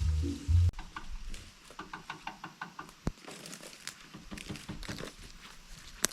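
Background music cuts off less than a second in. Then come scattered light taps, clicks and rustles, with one sharper knock about three seconds in and a sharp click near the end.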